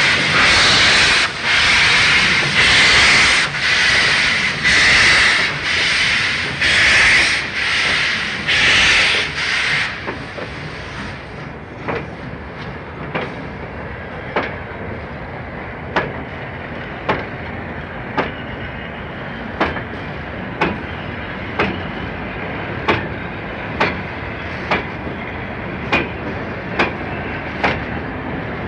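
French steam locomotive pulling away: loud exhaust chuffs of steam, about one a second, for the first ten seconds. Then the chuffing drops away, leaving a steady rolling rumble and the clickety-clack of wheels over rail joints, quickening a little as the train gathers speed.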